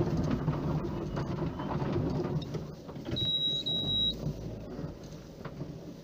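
Car interior road noise: the engine and tyres rumble unevenly as the car creeps along a snowy, icy road. About three seconds in there is a brief high-pitched squeal lasting about a second.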